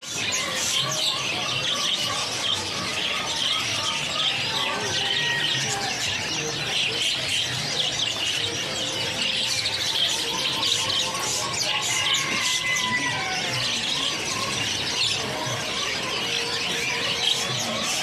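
A dense chorus of many small caged birds chirping and twittering at once, fast and unbroken throughout.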